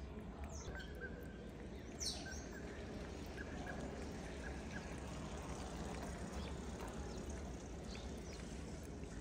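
Cat eating chunks of wet food from a plastic tray close up: soft wet chewing and smacking clicks over a steady low background rumble. A brief high falling chirp about two seconds in.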